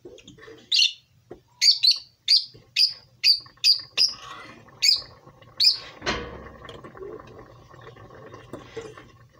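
A small bird chirping over and over, short high chirps about two a second for the first six seconds. A brief clatter comes about six seconds in.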